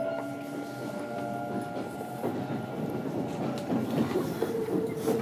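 Inside a Kintetsu Series 21 electric train on the move: wheels rolling and clicking over the rails, with the steady whine of its Mitsubishi VVVF inverter traction motors. A new steady tone joins about four and a half seconds in.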